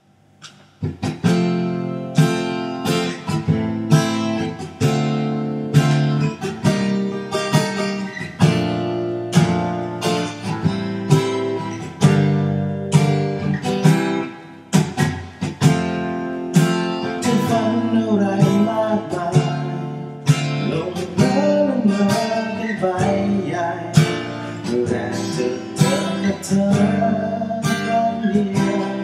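Acoustic guitar strumming a steady rhythm, joined by a man singing about halfway through.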